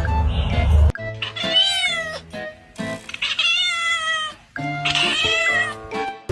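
Cat meowing three times in long, drawn-out calls that rise and fall in pitch, over background music.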